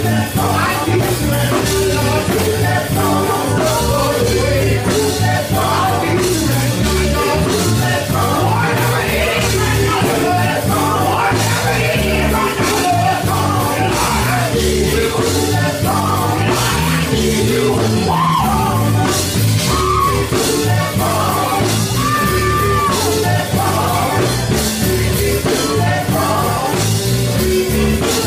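Gospel song with a band and singing voices, loud and continuous.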